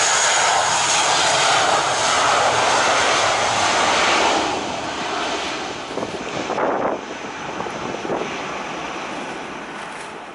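Airbus A320's jet engines at take-off power during the take-off roll, a loud steady roar with a strong hiss. About four seconds in it drops to a fainter, fading roar, broken by a few gusts of wind on the microphone.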